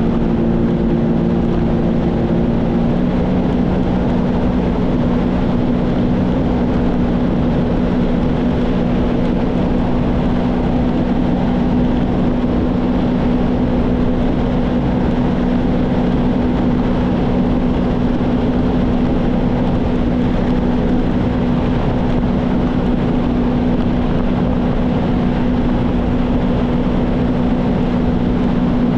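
Sea-Doo GTX 170 personal watercraft cruising at steady speed: its three-cylinder Rotax engine and jet pump run with a steady hum over a constant rush of wind and water. About three seconds in, the engine note shifts slightly, then holds steady.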